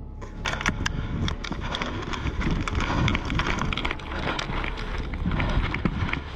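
Rustling and crunching of footsteps through dry forest litter, with many small irregular cracks of leaves and twigs.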